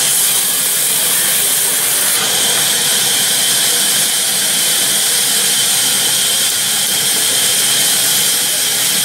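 Sawmill band saw blade cutting lengthwise through a log: a loud, steady hissing noise, strongest in the treble, with no break.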